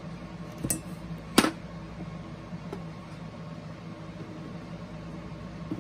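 A steady background hum with a few sharp knocks and clicks of handling. Two knocks come close together about a second in, the louder one at about a second and a half, and fainter clicks follow later.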